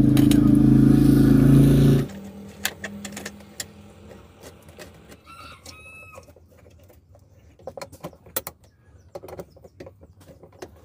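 A loud, steady engine hum that cuts off suddenly about two seconds in. It is followed by light metal clicks and clinks of pump parts being fitted together, and a faint rooster crow a little past the middle.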